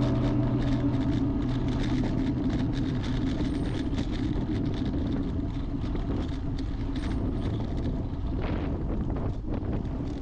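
Steady road and wind noise from riding a road bike, dotted with frequent small clicks and rattles.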